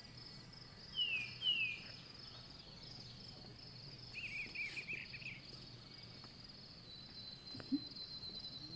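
Mountain forest ambience: insects keep up a steady, rapidly pulsing high trill. Birds call over it, first with two short downward-sliding whistles about a second in, then with a quick burst of chirps around the middle.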